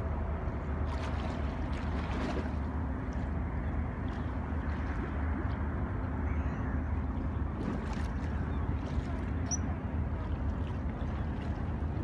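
Steady waterfront ambience: a low rumble of wind and choppy water with a faint hum like distant boat engines. Late on there is a brief, faint high chirp.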